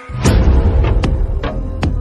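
Dramatic electronic background music with a heavy, driving beat of sharp hits.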